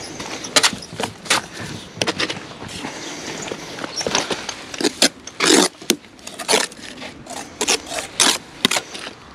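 Blocklaying work: a run of sharp knocks and clicks of a steel trowel and concrete blocks, with mortar scrapes, the longest about five and a half seconds in.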